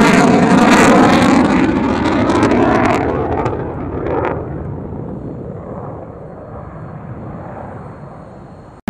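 F-22 Raptor's twin F119 turbofan jet engines heard in a flyby: loud at first, then fading steadily over the last several seconds as the jet flies away.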